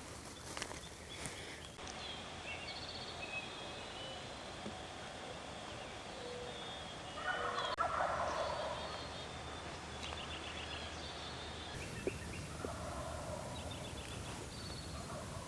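Wild turkey gobbling, loudest about halfway through with a fainter gobble later, among the trills and chirps of songbirds.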